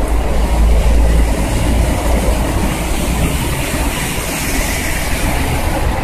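Steady low rumble of a moving vehicle with a hiss of rain and wet road noise over it. The hiss swells slightly midway.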